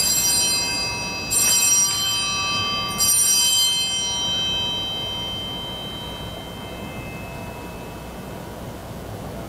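Altar bells struck three times, about a second and a half apart, each ring fading slowly over several seconds. They mark the elevation of the consecrated host at Mass.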